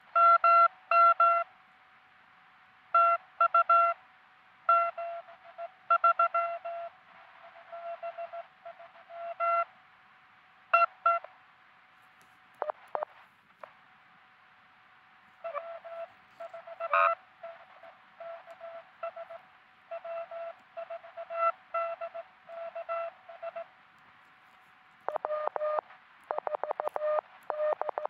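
Morse code (CW) beeps from a QRP truSDX transceiver: a mid-pitched tone keyed in groups of dots and dashes with short pauses between them, over a faint steady tone. Near the end a slightly lower-pitched signal keys a much faster, denser run.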